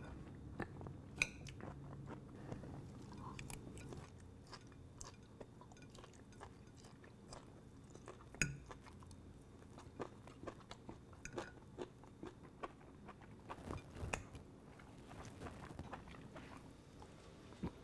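A person eating alone: a metal fork clicks and scrapes against a plate, with faint chewing, as scattered soft clicks over a low room hum.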